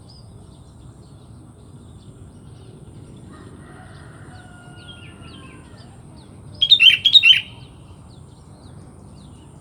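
Sooty-headed bulbul calling: one short, loud burst of quick call notes about seven seconds in, over fainter bird calls and a steady faint high tone.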